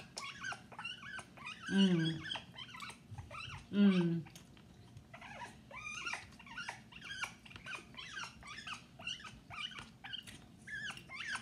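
African grey parrot vocalizing: two loud, low growl-like calls that drop in pitch, about two and four seconds in, then a fast run of short chattering chirps and clicks.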